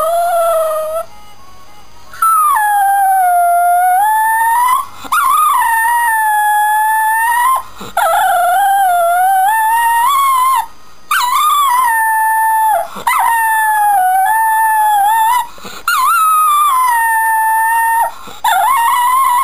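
Shetland sheepdog howling along to TV theme music: a chain of long, loud howls of two to three seconds each, broken by short pauses for breath, the pitch sagging in the middle of each howl and rising again at its end.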